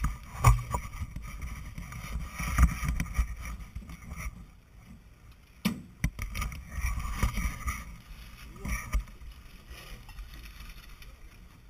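Wind rumbling on the microphone, with scattered sharp clacks and knocks as a dinghy's rudder is handled and fitted to its stern fittings.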